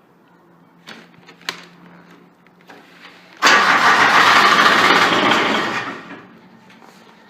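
Starter cranking the cold Grasshopper 721D's diesel engine for about two and a half seconds, then stopping as it fails to catch, after the glow plugs were heated. A couple of sharp clicks come before it.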